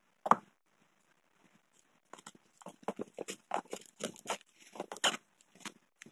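Hand-handling sounds around a car's accelerator pedal: one soft knock just after the start, then from about two seconds in a run of small irregular clicks and crinkles as gaffer tape is pressed around the pedal's base.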